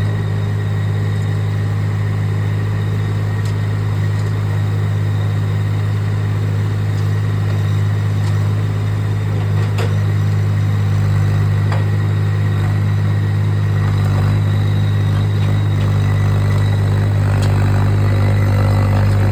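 Machinery engine running steadily under a working load, a constant low drone with a few light knocks. The drone grows slightly fuller about two-thirds of the way through.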